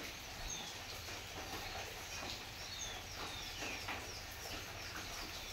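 Small birds chirping faintly: many short, downward-sliding high calls repeated irregularly over a steady low background hum.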